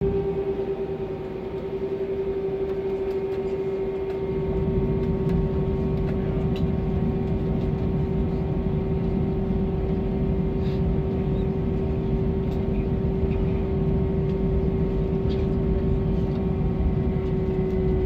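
Cabin noise of an Airbus A321 taxiing, heard from a window seat over the wing: a steady jet-engine rumble with a constant whine, the rumble growing louder about four seconds in and then holding, with scattered light clicks from cabin fittings.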